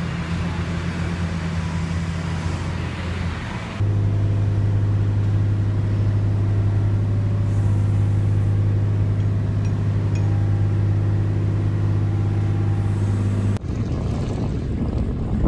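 A canal workboat's engine running steadily, cut between clips: first under way, then a louder, steady low drone while the boat's hydraulic excavator arm is in use, then a switch about thirteen seconds in to the engine under way with wind buffeting the microphone.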